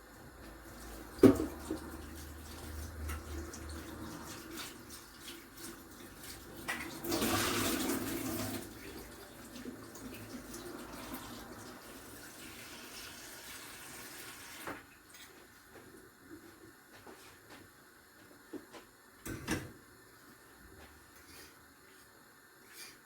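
Water from a tap running and splashing as whole unpeeled plantains are washed, strongest for a second or two and then running on more softly before stopping. A sharp knock about a second in is the loudest sound, with a few more knocks near the end.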